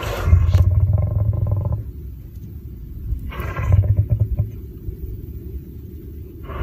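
Male lion roaring: two deep, long calls, the first at the start and the second a little past three seconds in, with low pulsing grunts between and after.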